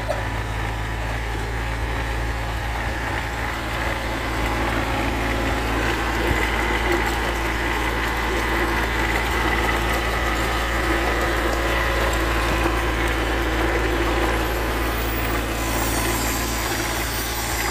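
Hitachi EX15-2 mini excavator's diesel engine running steadily.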